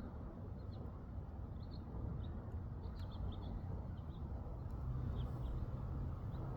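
A bird chirping repeatedly, short high notes coming in irregular little clusters, over a steady low rumble.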